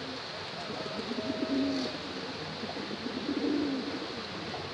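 Domestic pigeons cooing, several low, rolling coos in a row with a short break in the middle.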